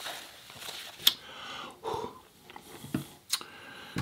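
Close-miked eating: wet chewing and mouth sounds, with a few sharp smacks about a second in and again a little past three seconds.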